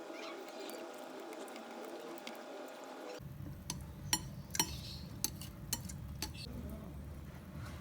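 Faint background hum, then a low rumble with a handful of light clicks and clinks, like kitchenware or small hard objects being handled.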